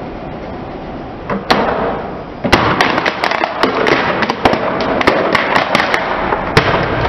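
Plastic toy guitar cracking and snapping as a car tyre rolls over it and crushes it. A single sharp crack about a second and a half in, then a dense run of snaps and crackles for about four seconds, ending in one last loud crack, over the steady sound of the car rolling.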